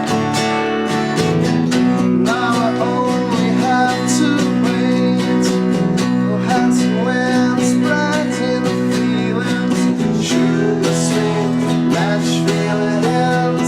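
Live band playing a song: strummed guitars and drums with cymbal hits, and a voice singing a melody over them.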